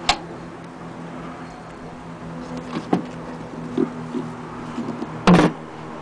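Handling the wooden case of an antique Singer hand-crank sewing machine: a sharp click of the case's side latch at the start, a few light knocks, and a louder thump near the end, over a steady low hum.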